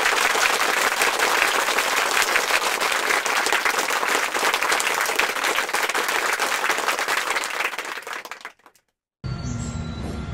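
Applause from a crowd: dense, steady clapping that fades out about eight seconds in and stops.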